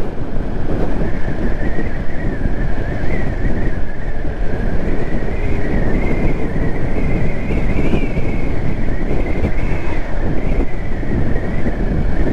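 Wind buffeting the microphone over a Honda Navi scooter's small single-cylinder engine running steadily at cruising speed, with a high whine that wavers slightly in pitch.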